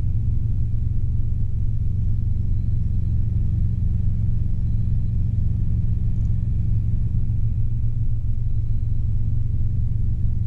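Robinson R22 helicopter's engine and rotor drone heard inside the cabin in flight: a steady, low-pitched hum that holds constant.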